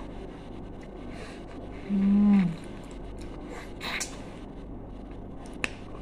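Mouth sounds of a woman eating a lemon wedge: a short closed-mouth hum about two seconds in, a brief noisy sound about four seconds in, and a sharp click near the end.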